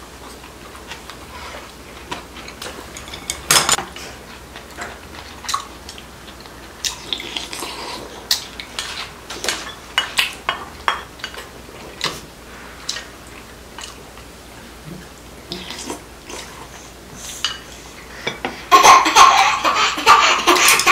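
Metal spoons and chopsticks clinking and scraping against ceramic bowls and dishes while eating, in scattered separate clicks. Near the end a loud voice breaks in suddenly and is the loudest sound.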